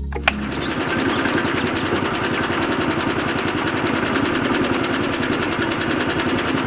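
A small motor running steadily with a fast, even buzzing rattle. It starts just after a sharp click.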